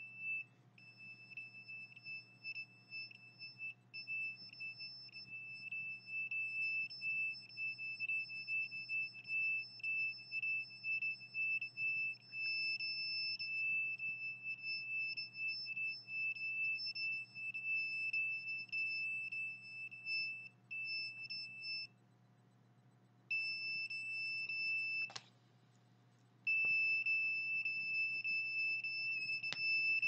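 A handheld electronic meter sounding a continuous high-pitched alarm beep, held almost without a break and dropping out twice near the end, with a short knock between the gaps.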